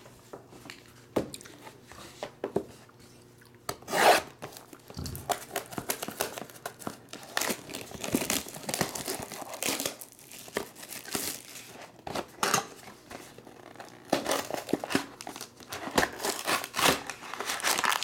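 Plastic shrink-wrap being torn and crinkled off a sealed box of trading cards, in irregular rustles and rips with the loudest about four seconds in. Near the end the cardboard box is opened and its foil packs are handled.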